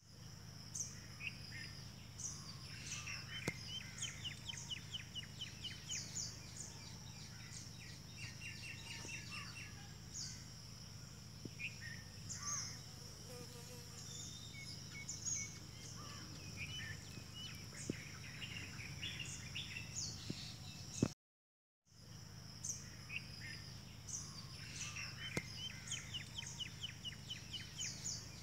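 Small birds chirping and trilling in a tree, many short repeated calls, over a steady high insect drone and a low background rumble. The sound cuts out for a moment about three-quarters of the way through.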